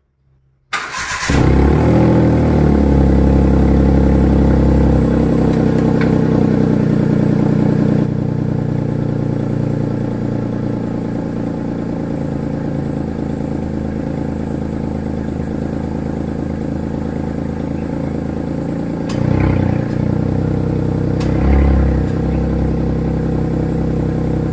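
Hyundai Eon's three-cylinder engine starting and then idling through a loud silencer that sounds like a race car. It settles to a lower idle about eight seconds in and is revved briefly twice near the end.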